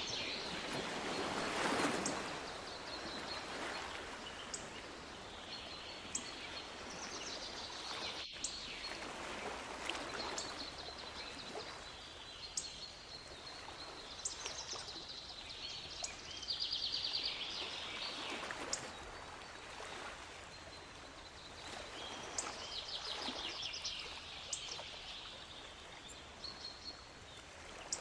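Sea waves washing in and drawing back in slow swells every several seconds, with small songbirds chirping and giving short rapid trills over them.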